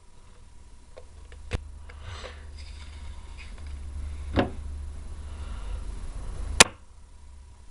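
Three sharp knocks or clicks over a low rumble that slowly grows louder; the last knock is the loudest.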